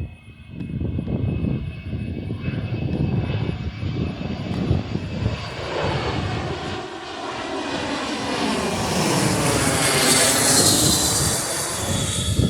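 Jet airliner passing close by, its engine noise building to a loud, hissing roar about ten seconds in, with a sweeping, phasing swish as it goes over.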